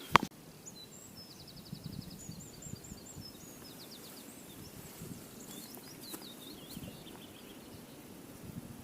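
Small birds singing high, twittering trills in two spells, about half a second in and again around six seconds in, over a faint low outdoor rumble. A short knock right at the start.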